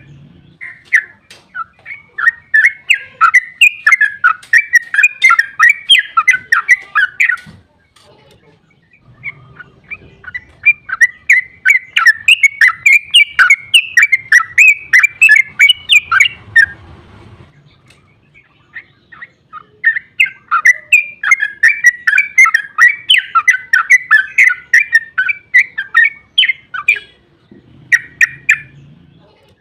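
Yellow-vented bulbul (trucukan) singing its long, rapid chattering 'ropel' song in three bouts of about seven seconds each, with short pauses between them and a brief extra phrase near the end.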